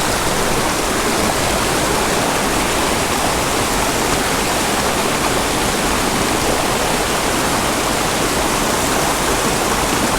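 A small mountain creek rushing and splashing close by, a steady, loud, even noise of running water.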